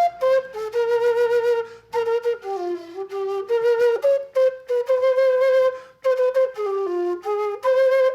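Background music: a solo flute playing a melody of short held notes and quick steps, in phrases broken by brief pauses.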